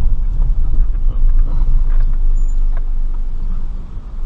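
Steady low rumble of road and running noise inside a moving Volkswagen car's cabin.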